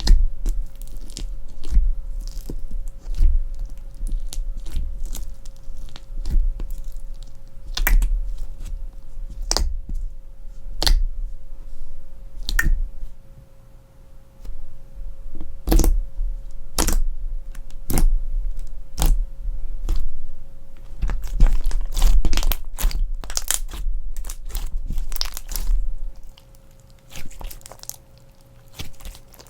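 Crunch slime being squished, pressed and stretched by hand, giving irregular crackles and pops with soft low thuds, the crackling coming thickest in quick clusters toward the end.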